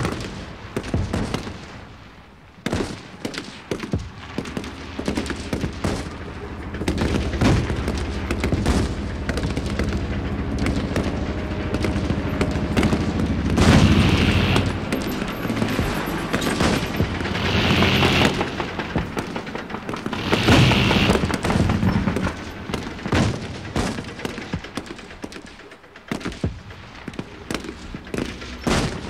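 Battle gunfire: rifle shots and machine-gun bursts crackling back and forth in quick, irregular runs. Three louder, longer blasts come near the middle.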